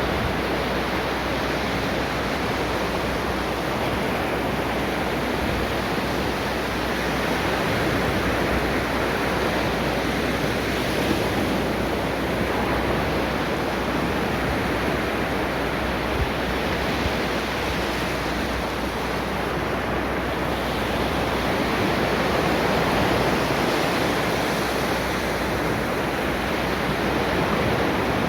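Ocean waves breaking and washing on a beach, a continuous rushing surf with gentle rises and falls in level.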